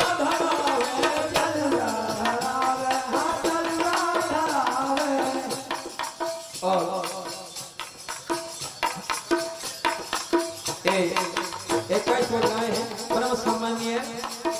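Bundeli bhajan accompaniment: a hand drum beating with jingling rattle percussion under a held melody line. About six seconds in, the melody thins and the level drops, leaving the drumming with short held notes until the full sound returns near the end.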